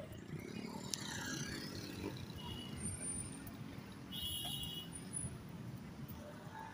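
Road traffic: a steady low rumble of vehicle engines, with a brief hiss about a second in and a couple of short high tones near the middle.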